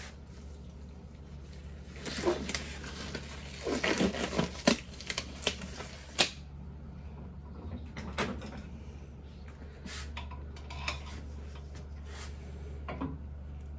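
A disposable glove being pulled onto a hand, a flurry of stretching rustles and sharp snaps from about two to six seconds in. A few light clicks follow from handling parts, over a steady low hum.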